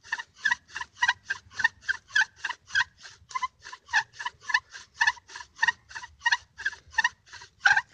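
Bow drill fire-lighting: a wooden spindle driven back and forth in a dry wooden hearth board squeaks and rasps with every stroke of the bow, a steady rhythm of about three to four strokes a second.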